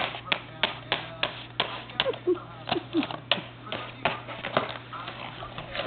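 Cat batting and knocking a small cardboard box of cat treats across a carpet: a quick run of sharp taps and rattles, about three a second.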